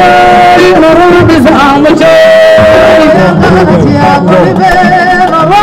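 A woman singing unaccompanied into a microphone, with long held notes and wavering ornaments.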